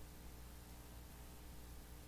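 Near silence: a steady low hum with faint hiss, and no music heard.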